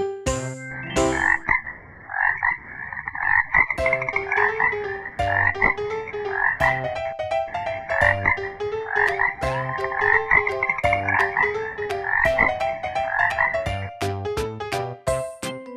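Frog croaking repeatedly, one call following another.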